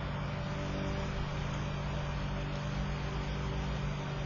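Steady background hum with a low droning tone and a hiss underneath, unchanging throughout, with no distinct clicks or snips.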